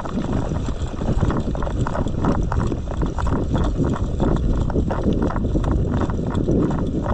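Running footsteps, about three strides a second, each a dull thud, over a constant low rumble.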